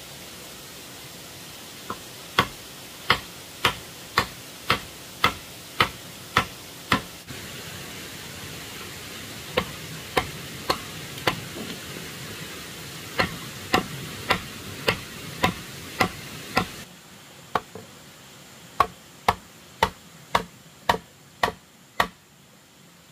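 Repeated sharp strikes of a hand tool, about two a second, in runs broken by short pauses, over a steady background hiss.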